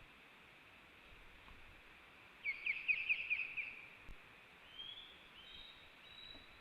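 White-tailed eagle calling: a quick run of about eight sharp, high call notes starting about two and a half seconds in and lasting just over a second, followed by a few fainter, thin high notes.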